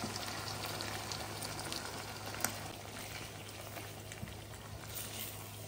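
Diced chicken breast and cream sizzling and bubbling in a hot non-stick frying pan as the cream is poured in, then stirred with a spatula, with one sharp knock about halfway through.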